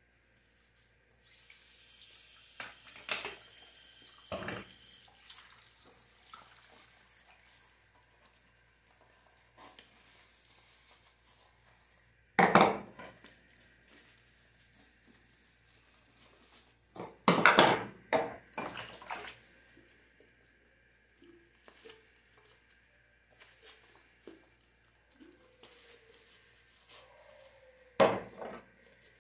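Dishes being washed by hand in a kitchen sink. A tap runs for a few seconds near the start, then comes quieter sponge scrubbing broken by a few sharp loud knocks and clinks of plates, bowls and glasses against each other and the sink.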